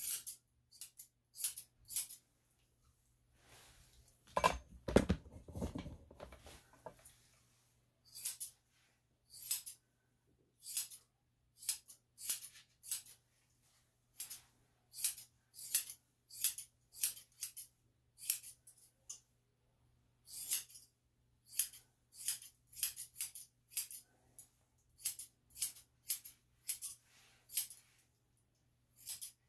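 Grooming scissors snipping hair on a dog's muzzle: a steady run of short, crisp metallic snips, singly and in pairs, one or two every second. About four seconds in, a low rustling sound lasts a couple of seconds.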